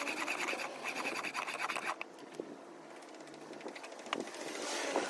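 A steel chisel held in a honing guide is pushed back and forth over the fine side of a wet DMT DuoSharp diamond bench stone: a gritty scraping in two strokes that stops about two seconds in. A few light clicks and knocks follow as the honing guide is handled.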